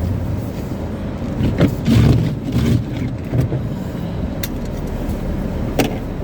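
Car running at low speed, heard from inside the cabin: a steady low engine and road rumble with a few scattered clicks and knocks.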